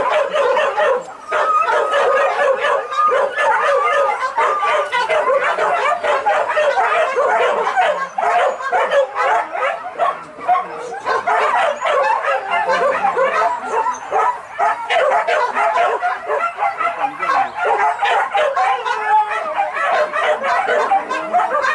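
A pack of hunting dogs yelping and barking together, many high voices overlapping without a break.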